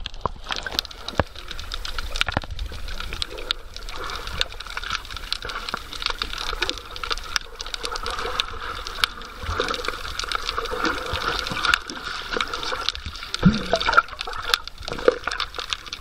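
Water heard underwater through a submerged camera: a muffled, steady wash of moving water and bubbling, with frequent short sharp clicks throughout.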